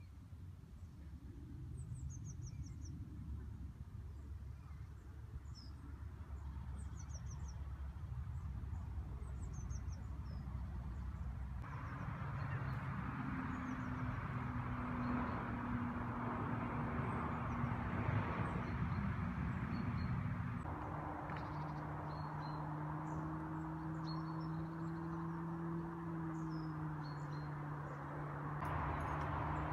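Small birds chirping at intervals over steady outdoor background noise, with a low steady hum joining about halfway through.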